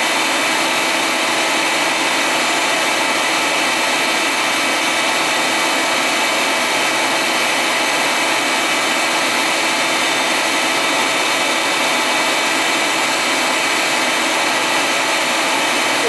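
Bee vacuum running steadily, sucking honey bees off the comb through its hose: an even, unbroken hiss with a faint steady whine.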